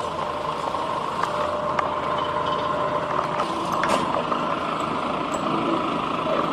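A steady engine hum running evenly, with a few sharp clicks.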